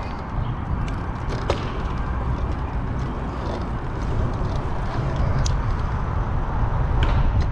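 Wind buffeting the microphone of a moving action camera: a steady low rumble that grows louder toward the end, with a few sharp clicks.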